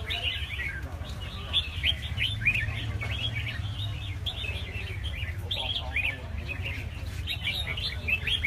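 Many caged red-whiskered bulbuls singing at once: a dense chorus of short, overlapping chirps and quick warbling phrases, over a low steady rumble.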